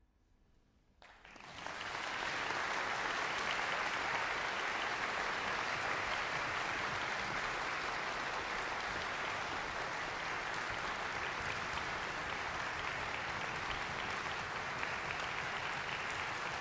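Audience applause in a concert hall, breaking out about a second in after a moment of silence, swelling quickly and then going on steadily.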